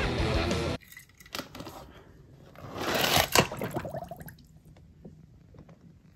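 Film soundtrack music cuts off suddenly under a second in. Then comes quiet handling of a plastic tub holding toy cars in water: scattered clicks, and a rustling slosh about three seconds in with one sharp plastic click.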